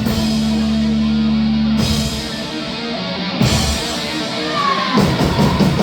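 Live punk rock band playing an instrumental passage on distorted electric guitar, bass and drums. A chord is held for about the first two seconds before the riff changes, and a bending guitar line comes in near the end.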